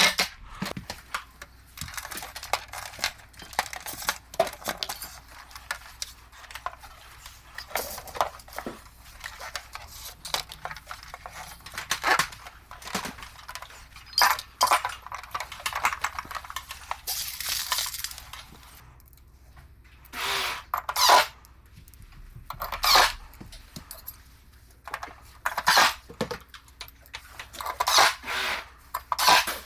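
Irregular clicks, taps and clatter of small hard parts and hand tools being handled while an air conditioner is taken apart, with short scraping sounds and two brief rushing noises about two-thirds of the way through.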